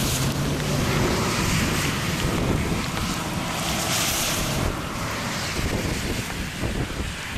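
Strong gusty wind buffeting the microphone, a rushing noise that swells at the start and again about four seconds in.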